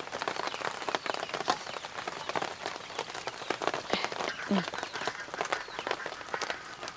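Hot oil sizzling with dense, irregular crackling as ainaas (madakku), folded maida-dough pastries, deep-fry. The pastries have turned golden and are nearly done.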